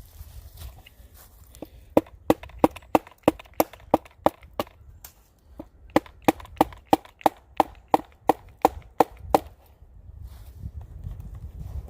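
Repeated sharp knocks of wood pounded into a dead tree trunk, about three a second, wedging the cut apart. There is a short break midway and the knocking stops a couple of seconds before the end.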